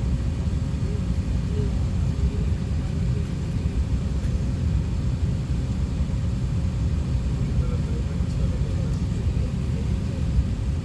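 Steady low rumble of an Airbus A380-800 heard from inside the passenger cabin, with a faint steady hum above it.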